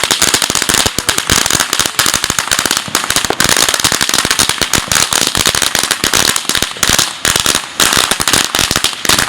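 Strings of firecrackers going off: a dense, continuous rattle of sharp pops with no letup.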